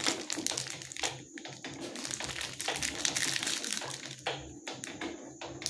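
Clear plastic film wrapped around a long bar of laundry soap crinkling and crackling as it is handled. The crackle is dense for about the first second, then comes in sparser, scattered crackles.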